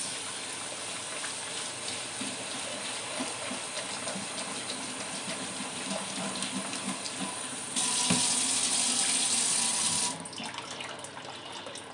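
Kitchen tap running onto sprouting seeds in a plastic colander, the water splashing and draining into a stainless steel sink. The splashing gets louder for about two seconds about two-thirds of the way through, then eases off.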